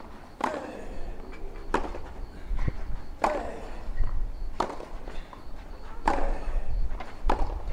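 Tennis rally on a clay court: six racket strikes on the ball, evenly spaced about one and a half seconds apart, over a low steady rumble.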